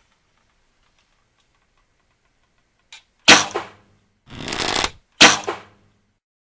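Bow-and-arrow sound effects. A faint, quick ticking like a bow being drawn is followed by two loud sharp cracks about two seconds apart, with a swelling whoosh between them, in the manner of a bowstring release, an arrow in flight and a hit.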